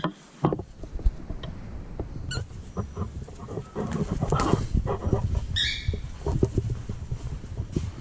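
A pet bird gives one short, high chirp about six seconds in, over continuous low rumbling and rustling noise with scattered knocks.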